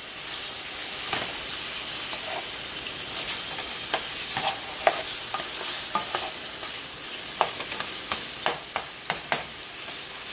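Chicken pieces sizzling in hot oil in a nonstick frying pan, a steady hiss, while a spatula stirs them with short scraping knocks against the pan that come more often in the second half.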